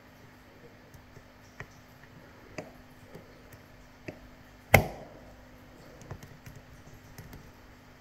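Small scattered clicks and ticks of lock-picking tools working inside a Laperche Rols lock, with one much sharper knock a little past halfway, over a faint steady hum.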